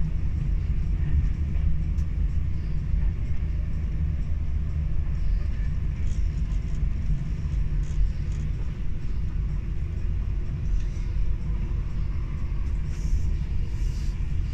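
Steady low rumble of a Class 390 Pendolino electric train running at speed, heard from inside the passenger carriage, with a few faint clicks.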